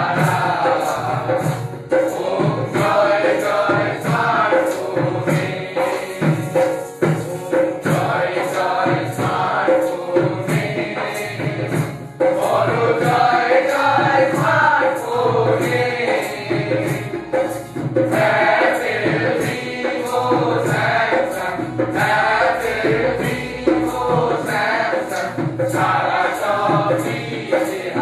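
A group of voices singing together over a steady percussive beat, like hand claps or small jingling percussion.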